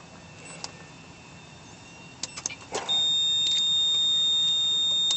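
A few sharp clicks, then about three seconds in a steady, loud, high-pitched electronic warning tone starts and holds: the AEVIT 2.0 driving-control system's alarm as its primary controls are disengaged for the factory controls.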